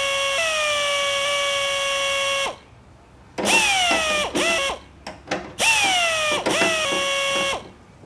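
Small electric screwdriver driving the screws that hold a speaker spacer ring to a car door panel. Its motor whine spins up quickly and runs for about two and a half seconds, then stops. It comes back in short stop-start runs and one more long run that ends near the close.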